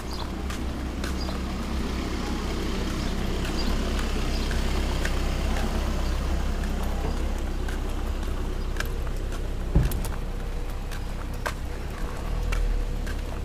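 A car on the street, its engine and tyre rumble swelling gradually towards the middle and easing off again as it passes, with scattered light clicks.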